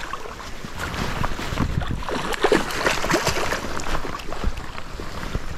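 Irregular splashing and sloshing of shallow stream water as a hooked small rainbow trout thrashes at the surface close to the landing net.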